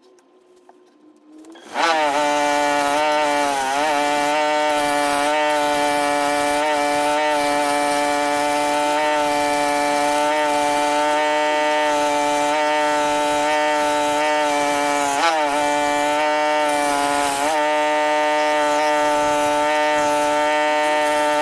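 A power tool's motor starts about two seconds in and runs steadily with a high hum and a hiss of cutting as it carves walnut wood. Its pitch dips briefly a few times as it bites into the wood under load.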